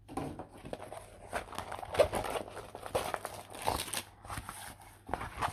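Rolled diamond-painting canvas with its plastic cover film crinkling and crackling as it is unrolled and flattened by hand, in an irregular run of rustles and small crackles, loudest about two seconds in.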